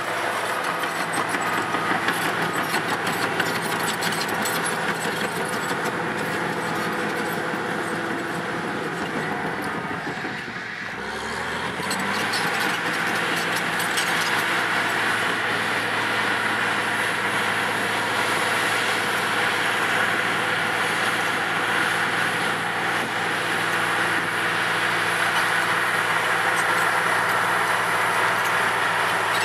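Caterpillar D8R crawler dozer's diesel engine running under load while pushing dirt, with a busy clatter from the steel tracks over it. The sound dips briefly about ten seconds in, then the engine note climbs back and runs steadily.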